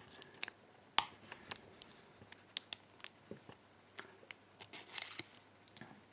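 Irregular small metallic clicks and ticks from tweezers and tiny metal lock parts as a pin-tumbler lock is taken apart and a stuck pin is worked out of its chamber.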